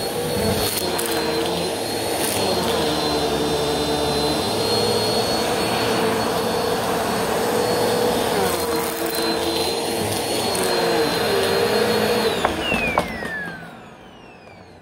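Bissell bagless upright vacuum cleaner running on carpet, a steady motor whine over a hum that dips in pitch now and then. About twelve seconds in it is switched off with a click and the motor winds down, its whine falling.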